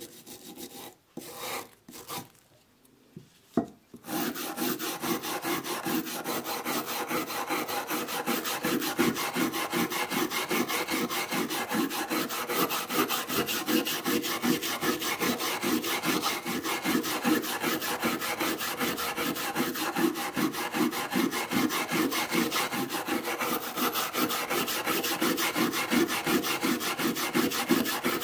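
Small hand wire brush scrubbed rapidly back and forth over a rusty steel hand-plane iron, scouring off rust. A few short scrapes come first, then continuous quick strokes from about four seconds in.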